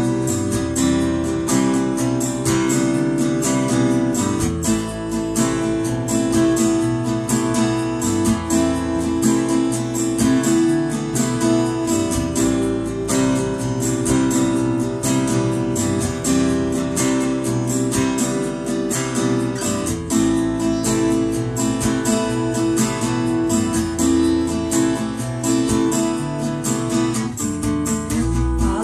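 Acoustic guitar strummed steadily, with an electric bass guitar playing low notes underneath: an instrumental stretch of a song, without singing.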